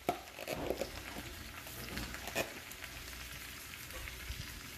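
Garlic and oil sizzling in a frying pan under a heap of fresh spinach leaves: a quiet, steady frying hiss with a few light ticks.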